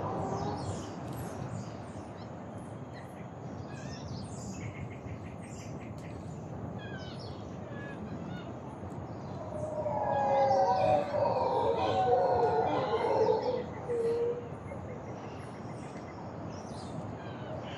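Birds chirping throughout. A little past halfway, several animals give overlapping wavering howls for about four seconds, the loudest sound here.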